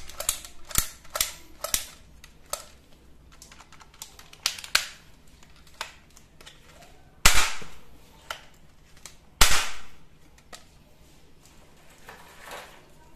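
Plastic toy guns being handled: a run of sharp clicks and snaps, then two louder sharp cracks about two seconds apart, each trailing off briefly.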